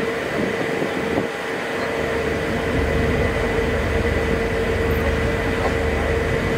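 Excursion ship's engine running steadily, heard on board: a low rumble with a constant whine over it. The low rumble drops away for about the first two seconds, then comes back.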